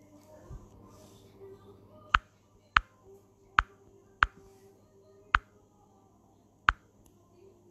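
Six sharp taps at uneven intervals, starting about two seconds in: fingernails tapping on a phone's touchscreen right next to its microphone.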